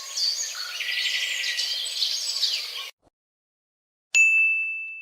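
Birds chirping over a soft hiss, cut off abruptly about three seconds in. After a second of silence comes a single bright ding that rings on and fades away.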